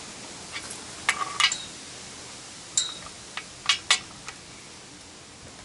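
Several short, sharp metallic clinks and clicks, some with a brief ring, as a torque wrench and socket are pulled on a main bearing cap bolt of an engine block.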